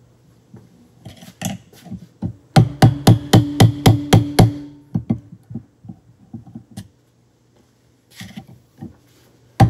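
A hammer strikes a screwdriver wedged under the carrier bearing of a Can-Am Smart-Lock front differential, working the semi-press-fit bearing off. A quick run of ringing metal-on-metal blows, about five a second, comes a couple of seconds in. Lighter taps follow, then a short pause and a few more knocks.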